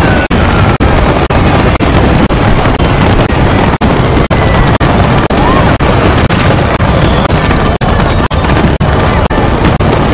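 Loud fireworks barrage, a dense unbroken wash of bangs and crackle, cut by very short gaps about twice a second.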